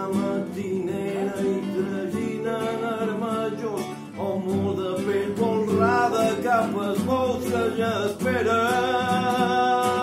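A man singing a song in a full voice while strumming a nylon-string classical guitar.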